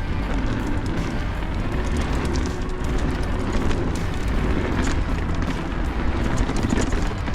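Wind buffeting a bike-mounted or helmet camera's microphone and mountain bike tyres rumbling over a dirt and rock trail at speed, with scattered clicks and rattles from the bike.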